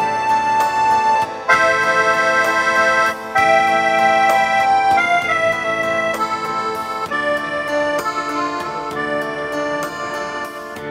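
Instrumental music with long held melody notes over a steady beat.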